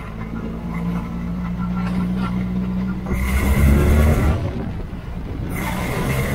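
Formula Ford's four-cylinder engine running as the car gathers speed, with wind rushing over the onboard microphone that comes in strongly about three seconds in, eases for a moment and returns near the end.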